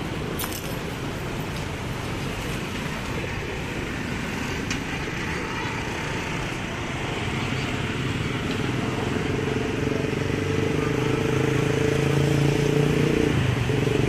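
Steady city traffic noise. From about halfway a vehicle engine's low note grows louder, then cuts off shortly before the end.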